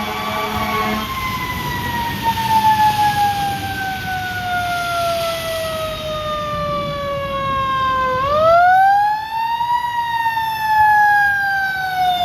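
Fire engine siren wailing: its pitch falls slowly for about eight seconds, then sweeps back up and starts to fall again, over the low rumble of the apparatus.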